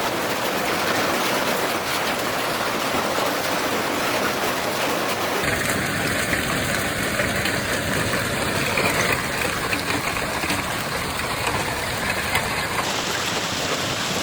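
Hail and heavy rain pounding down in a steady rushing noise with scattered sharp impacts, changing abruptly about five seconds in and again near the end.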